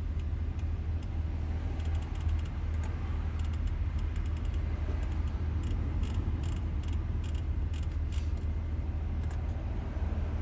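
Steady low hum inside the Audi Q7's cabin, with scattered light clicks of dashboard controls being pressed.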